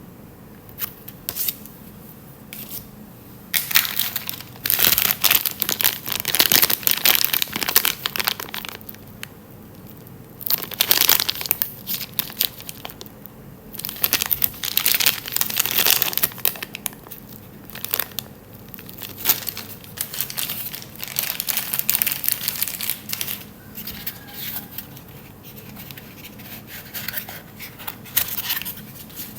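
Packaging being crinkled and torn open by hand, in irregular bursts of crackling that come and go, some lasting several seconds.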